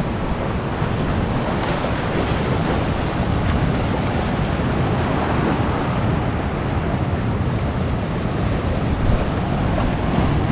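Sea surf surging and washing through a narrow shore gully, with wind on the microphone.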